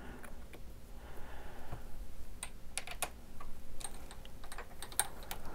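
Scattered light clicks and taps of a brass .30-06 case and a copper bullet being handled and set in a Hornady single-stage reloading press while a bullet is seated. The clicks come closer together in the second half.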